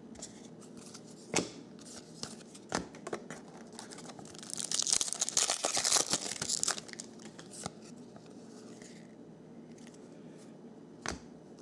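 Foil trading-card pack torn open, the wrapper crinkling for a couple of seconds in the middle, with a few sharp clicks before and after.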